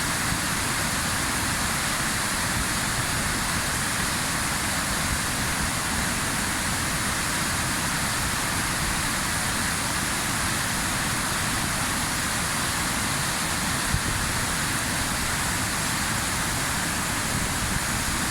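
A large river waterfall, a steady, even rush of falling water, with one brief bump about fourteen seconds in.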